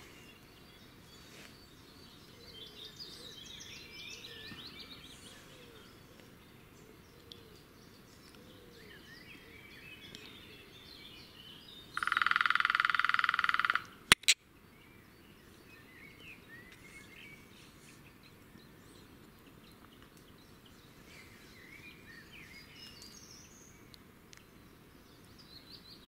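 Small woodland birds chirping and singing faintly all through. About halfway, a loud, steady buzzing sound lasts about two seconds, and a sharp double click follows just after it.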